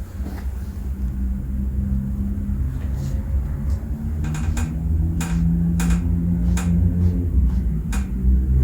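A low, steady rumble with about eight sharp clicks scattered through it.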